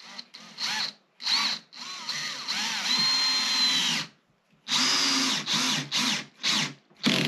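Cordless drill-driver driving screws through swivel-caster mounting plates into a wooden speaker cabinet. It runs in a string of short trigger bursts with one longer run of about two seconds near the middle, the motor whine rising and falling with the trigger.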